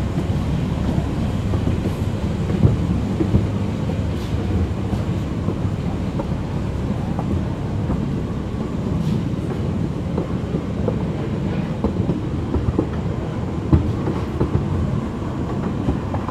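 Small ride train running along its track, heard from an open passenger carriage: a steady low rumble of wheels on rails with scattered clicks and rattles from the carriages.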